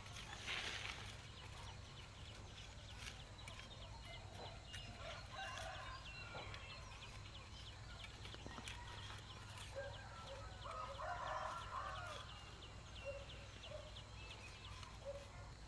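Poultry calling faintly in short spells, about five seconds in and again around eleven seconds, over a steady low background rumble.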